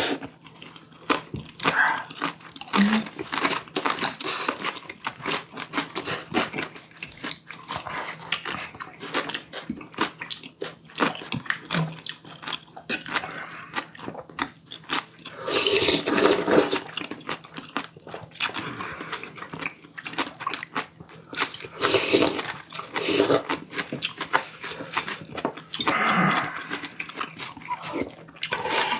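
Close-miked eating: wet chewing and crunching of spicy stir-fried webfoot octopus with bean sprouts and rice, with many small clicks of utensils and food. The sound swells louder a few times, around the middle and again near the end.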